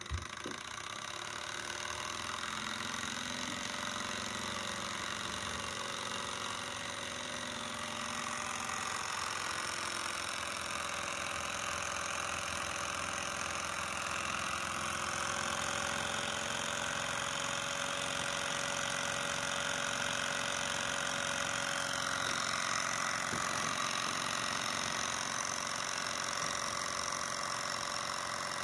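Bohm HB14 twin-cylinder Stirling model engine running steadily: an even, fast mechanical clatter from its linkages and ball-bearing pivots.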